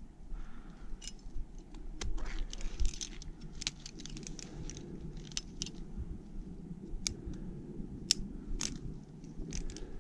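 Climbing hardware clinking and scraping against granite in scattered sharp clicks, over a steady low rumble.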